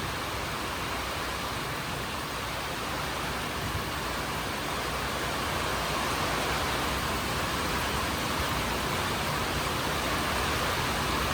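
Steady heavy rain, an even hiss with no single drops or knocks standing out, growing slightly louder about halfway through.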